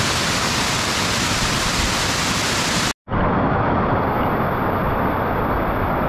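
Waterfall pouring over rock right at the microphone, a loud steady rush of water. It drops out for an instant about halfway through and comes back duller, with less hiss.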